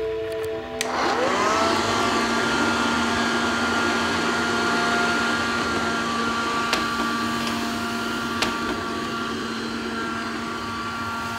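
Robot vacuum cleaner starting up about a second in: its motor whine rises quickly, then levels off into a steady whirring. Two short clicks come later.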